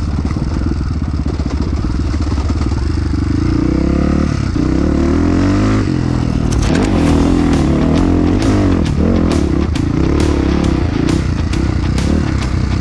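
Honda CRF250F's single-cylinder four-stroke engine running on a dirt trail, its pitch rising and falling with the throttle. Repeated clattering knocks from about halfway.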